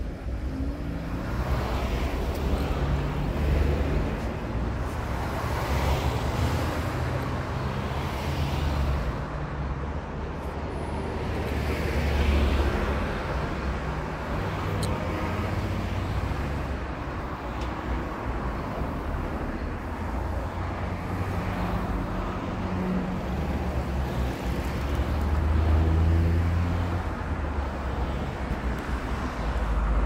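Car driving in road traffic: a low engine hum over road noise that swells and eases several times.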